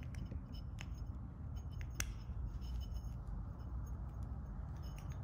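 Small flathead screwdriver tightening the ground screw inside a metal lamp socket cap: scattered light metal clicks and scrapes, a sharper click about two seconds in.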